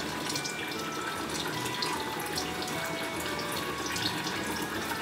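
Kitchen tap running steadily into a sink, with faint knife ticks as a pear is sliced on a cutting board and a quiet background melody.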